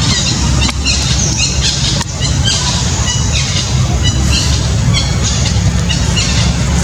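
Rapid, repeated high-pitched chirping squeaks from animals, over a steady low rumble.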